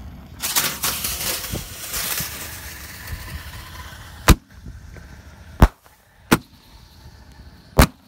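Mini 1-inch consumer artillery shells fired from a chained rack: a loud hiss as the fuse burns for about two seconds, then four sharp bangs spread over the next few seconds as the shells go off.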